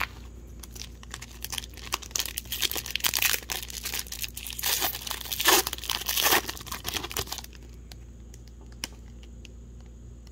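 Foil wrapper of a hockey card pack crinkling and being torn open, the loudest tears about five and a half and six seconds in. The crinkling stops suddenly about seven and a half seconds in, leaving only a few faint clicks.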